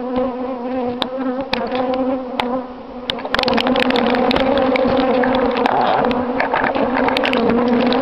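Honey bees buzzing around the microphone at an open hive: a steady, even hum. About three seconds in it gets louder and harsher, with many sharp clicks and crackles over the buzz.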